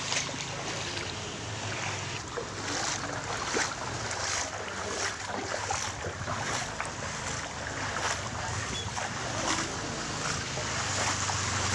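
Irregular splashing of shallow, muddy floodwater as someone wades along a flooded street, with wind buffeting the microphone and a low steady hum underneath.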